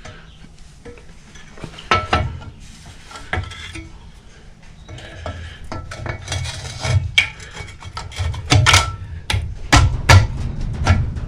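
Clutch pressure plate clinking and scraping against the flywheel as it is turned to line up with the flywheel's dowel pegs. Scattered metal knocks, more frequent and louder in the second half.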